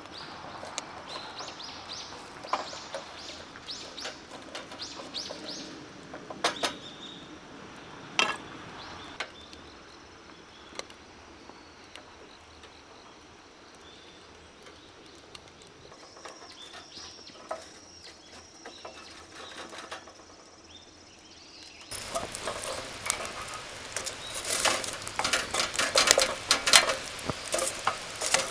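Small tabletop wood stove burning, with occasional sharp pops from the burning wood. About 22 s in, the sound changes abruptly to a much louder, dense crackling.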